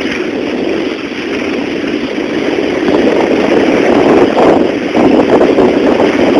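Wind rushing over a camcorder microphone as it moves down a ski slope, a loud steady low rush that grows louder about halfway through.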